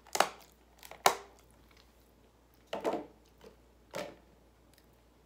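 Eating sounds: two sharp clicks about a second apart as a clear plastic food container is handled, then softer chewing sounds about three and four seconds in.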